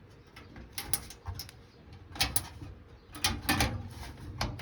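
Scattered light clicks and knocks of a micro-ATX motherboard being shifted and set down onto the standoffs inside a PC case while its holes are lined up.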